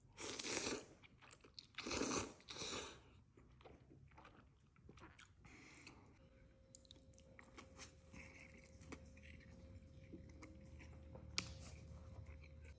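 Close-miked eating sounds of chicken noodle soup: two loud bursts as noodles are taken into the mouth in the first three seconds, then quieter chewing with small mouth clicks.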